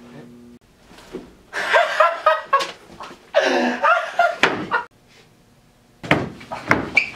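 Loud outbursts of laughter and shouting, then a hand slammed down on a wooden desk about six seconds in, with another slam and more shouting after it.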